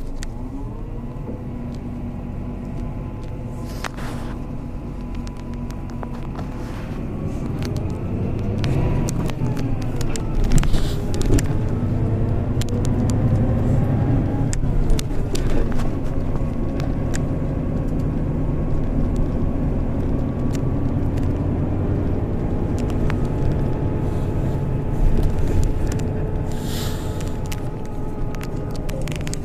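Inside a motor vehicle travelling along an expressway: a steady rumble of engine and tyres, louder from about a quarter of the way in, with a whine whose pitch rises and falls as the vehicle changes speed, and a few sharp knocks.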